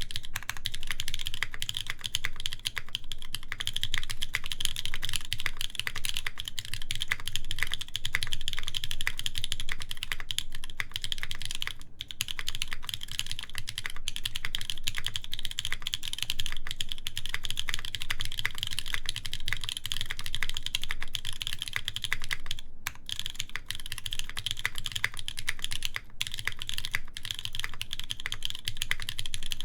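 Fast, continuous typing on a custom mechanical keyboard with lubed, broken-in Kailh Cream linear switches, an aluminium plate and GMK keycaps, a steady stream of keystroke clicks. It pauses briefly twice, about twelve seconds in and near twenty-three seconds.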